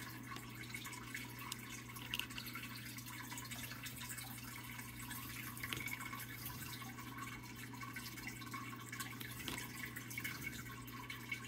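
Faint dripping and trickling water from water being handled in plastic cups, with scattered small ticks, over a steady low hum.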